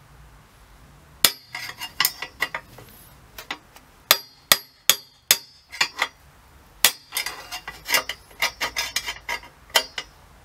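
Lump hammer striking a steel rod used as a drift through a bicycle head tube, a long series of irregular metal-on-metal blows that each ring briefly. The blows are knocking a press-fit headset cup out of the frame a little at a time.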